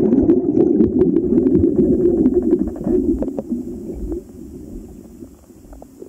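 Muffled underwater rumbling and bubbling of water moving around a submerged microphone, with scattered small clicks. It drops to a much quieter level about four seconds in.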